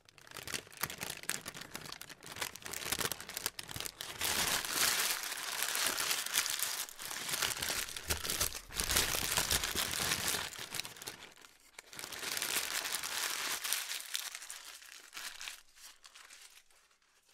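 Paper being crumpled and crunched, a dense crackling full of small snaps. It swells to its loudest in the middle, drops in a brief lull about two-thirds through, picks up again, then fades away near the end.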